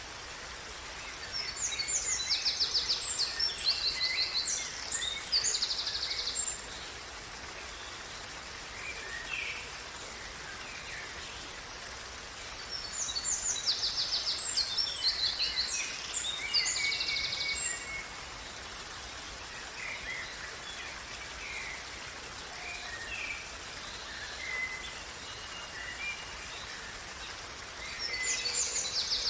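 A songbird singing in three bouts of fast, high, buzzy trills roughly twelve seconds apart, the last starting near the end, over the steady rush of a running stream.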